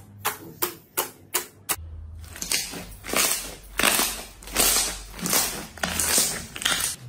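Fingertips jabbing into a slab of glossy slime, making sharp popping clicks about three times a second. About two seconds in, this gives way to thick slime being squeezed and kneaded, with longer crackly squelches every second or so.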